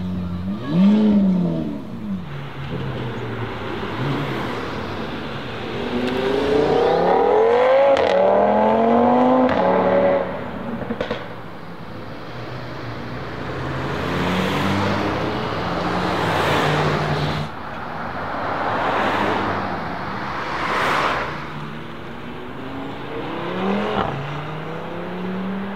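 ABT-tuned Audi RS3 sedan's turbocharged five-cylinder engine revving and accelerating hard in several runs. There is a sharp rev about a second in. A long pull follows, its pitch climbing and dropping back at two upshifts. Later come surging pass-bys and one more rev near the end.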